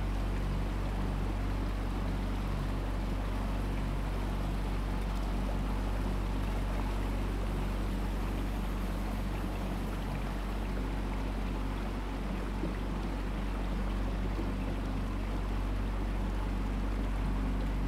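Small boat's engine running at a steady speed, a constant low hum, with water rushing along the hull.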